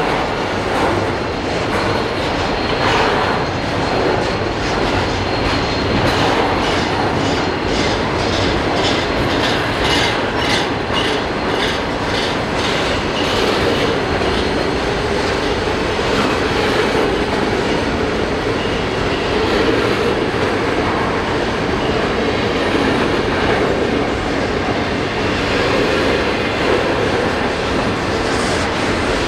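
A train passing close by on the main line, its wheels clicking rhythmically over rail joints, strongest in the first half, under a steady rumble of rolling wheels and cars.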